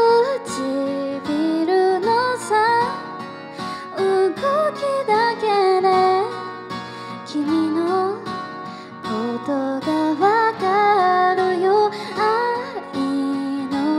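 A woman singing a slow ballad live into a handheld microphone over guitar accompaniment, her voice sliding between sustained notes.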